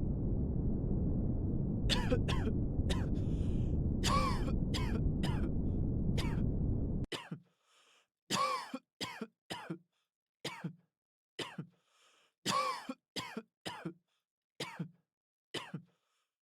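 A person coughing and clearing their throat over and over, about a dozen short coughs, over a steady low rumble of background noise that cuts off suddenly about seven seconds in; the coughs go on after it stops.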